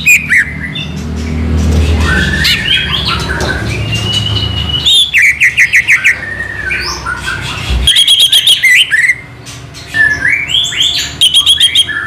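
Cucak ijo (green leafbird) singing loudly: a varied run of whistles and chirps, broken by fast repeated trills about five seconds in, again near eight seconds and near the end.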